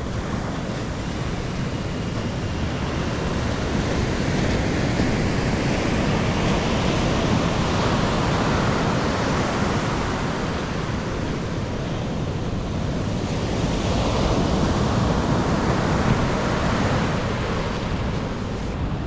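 Ocean surf breaking and washing up the beach, the roar swelling and easing twice, about seven seconds apart, with wind rumbling on the microphone.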